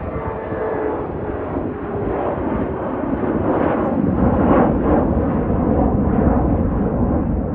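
Jet engine noise from a United Express CRJ700 regional jet climbing out after takeoff: a steady rushing roar that grows louder and deeper about halfway through, with a faint whine early on.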